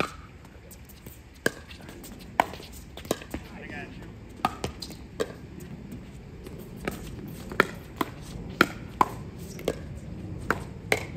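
Pickleball rally: sharp pops of paddles striking the plastic ball and the ball bouncing on the court, about fifteen hits at uneven spacing.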